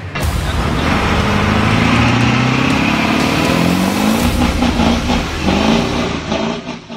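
A motor vehicle engine revving hard, its pitch climbing over several seconds, dropping, then rising again briefly before fading out near the end.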